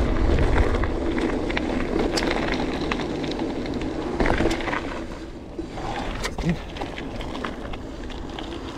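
Mountain bike riding down a gravel track: tyres crunching over loose stones, with scattered clicks and rattles from the bike and wind rumbling on the microphone. It gets quieter about halfway through as the bike slows.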